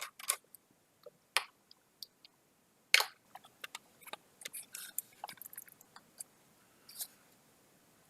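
Scattered small clicks, ticks and crackles of hands working plastic and metal parts inside an opened laptop, freeing the motherboard and its cable connectors. The sharpest click comes about three seconds in.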